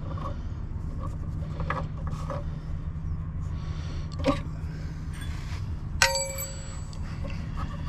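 Light clicks and taps of metal parts being handled, then about six seconds in a single sharp metallic ping that rings for about a second, as a metal brake-hose fitting or tool strikes metal. A steady low hum runs underneath.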